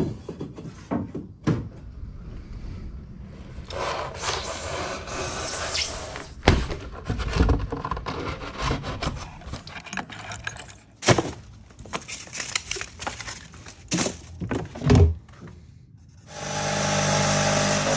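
Hand-tool work on a camper-shell roof: scraping, knocks and sharp clicks at uneven intervals. A steady machine hum starts near the end.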